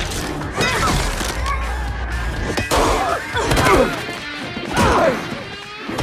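Film fight sound mix: music under several hard punch and crash impacts.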